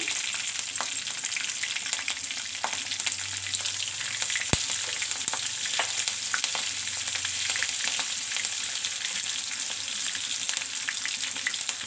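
Green chillies and cumin seeds frying in hot oil in a wok: a steady sizzling hiss with scattered crackling pops, and one sharp click about four and a half seconds in.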